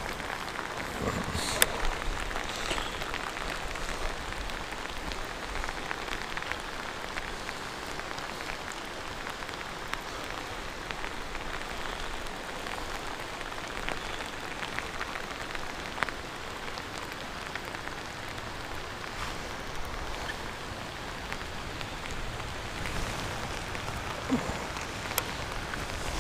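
Heavy rain falling on lake water: a steady hiss with many scattered drop taps, a few of them sharper and closer.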